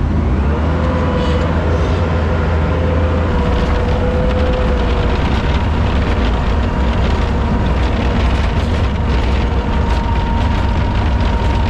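Truck engine running steadily: a continuous low rumble with a thin, steady whine above it.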